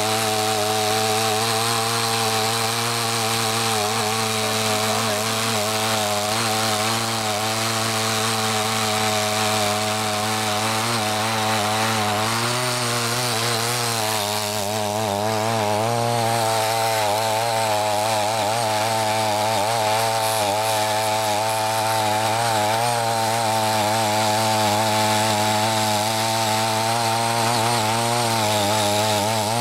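Small air-cooled engine of a CY50 mini tiller running steadily under load as its four rotary blades till and weed the soil, its pitch wavering slightly as the load changes.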